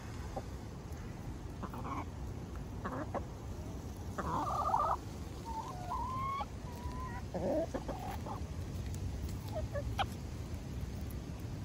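Hens clucking as they forage, a handful of short calls scattered through, the loudest about four to five seconds in, over a low steady rumble.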